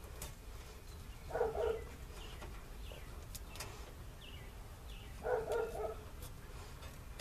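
Two short pitched animal calls, about four seconds apart, over a steady low rumble, with a few faint clicks.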